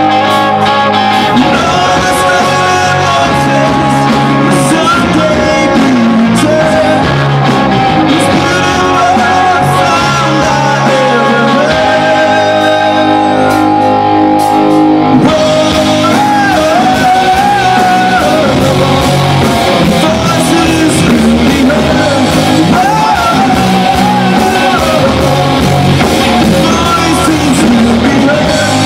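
Live rock band playing loudly on amplified electric guitars, electric bass and a drum kit, with a sung vocal line. The hall's reverberation colours the sound.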